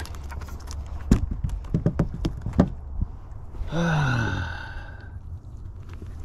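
A few short knocks and thumps on a boat deck, then about halfway through a man's low groan that slides down in pitch for about a second.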